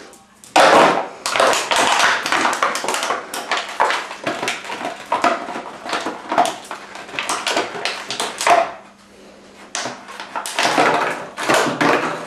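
Plastic bottle crackling and crunching as a dog bites and crushes it, in dense loud bursts with a short lull about nine seconds in.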